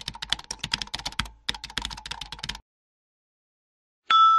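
Computer keyboard typing sound effect: two quick runs of key clicks with a short break between them. Near the end a bell-like ding strikes and rings on.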